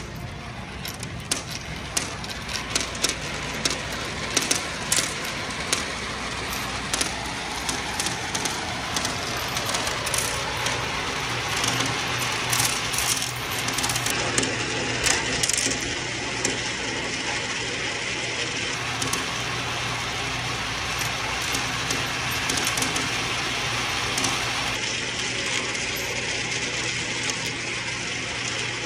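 Pennies rolling round and round the curved funnel of a vortex coin bank. It is a continuous rolling whir, dense with small rapid clicks as the coins spiral and knock toward the centre hole.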